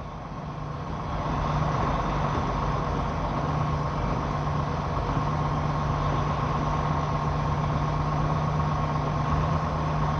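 Semi truck's diesel engine running steadily, heard from inside the cab, growing a little louder about a second in and then holding.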